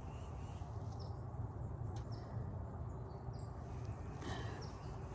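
Outdoor garden ambience: small birds giving short, high, downward chirps again and again over a low steady rumble, with a single faint click about two seconds in.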